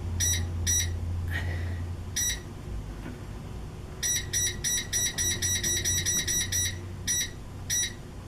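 Electric space heater's control panel beeping at each button press: a few single beeps, then a quick run of beeps about four seconds in as the temperature setting is stepped up, and two more near the end. A low steady hum runs underneath.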